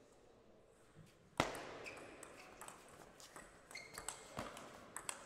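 Table tennis doubles rally: the ball clicking off bats and the table a few times a second, with brief squeaks from shoes on the court floor. One loud, sharp knock with a short ring about a second and a half in is the loudest sound.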